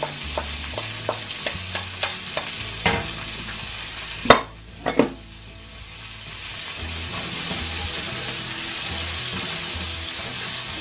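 Chopped onion sizzling as it is added to garlic sautéing in a stainless steel frying pan, with a wooden spatula tapping and scraping against the bowl and pan. A sharp knock comes about four seconds in as the spatula is set down on the pan, and then the frying sizzle continues steadily, a little louder toward the end as it is stirred.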